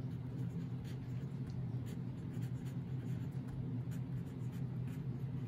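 Pencil writing on paper on a clipboard: short, faint scratching strokes over a steady low hum.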